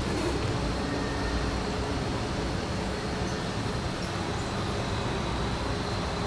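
Steady street traffic noise, an even background rumble and hiss with no distinct events.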